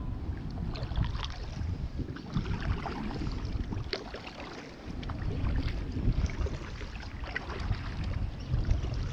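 Kayak paddle strokes in the water, with irregular small splashes and drips as the paddle blades dip and lift, over a low rumble of wind on the microphone.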